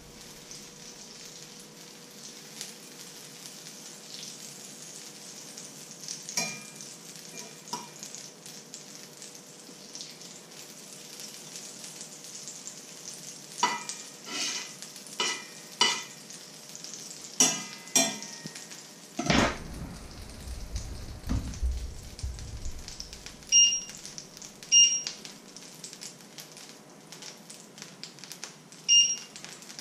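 Butter melting and sizzling in a hot frying pan, with a utensil scraping and tapping against the pan now and then. A few dull knocks come a little past the middle, and three short electronic beeps from the ceramic hob's controls come in the last third.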